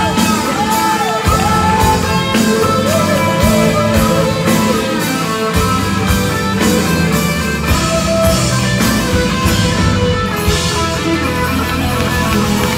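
A live rock band playing: electric and acoustic guitars, bass guitar and drums, with a steady beat.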